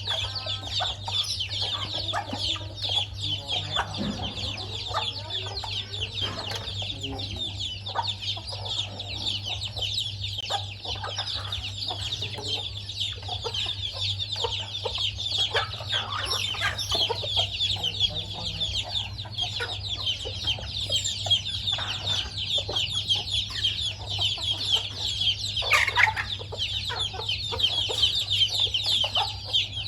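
A hen and chicks feeding: the chicks peep steadily and densely, and the hen gives short clucks among them, over a steady low hum.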